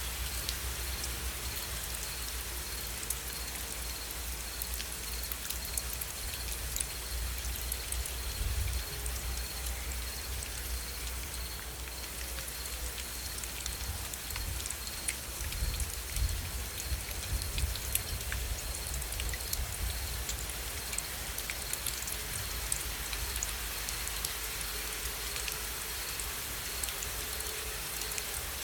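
Steady rain with many individual drops ticking on a surface, over a low uneven rumble and a faint steady high whine.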